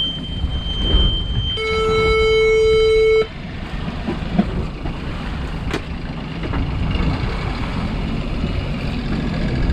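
An engine instrument panel's warning beep and buzzer on a sailing boat. A steady high beep ends about a second and a half in, then a louder, lower buzzer tone sounds for about a second and a half and cuts off abruptly. A boat engine runs low underneath.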